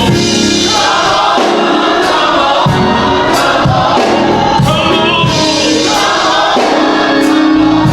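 Live gospel song: a choir singing with instrumental accompaniment over a steady beat.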